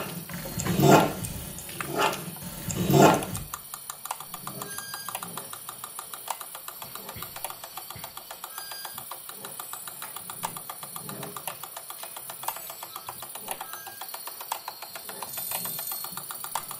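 Electroacoustic noise improvisation on homemade devices, relays, motors and a prepared guitar. It opens with three loud noisy swells about a second apart, then from about three and a half seconds in becomes a dense, fast crackle of fine clicks with occasional short high beeps.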